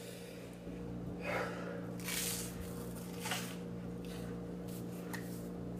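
A man breathing heavily, with a few loud exhales and gasps through the nose and mouth, the longest about two seconds in. A steady low electrical hum runs underneath.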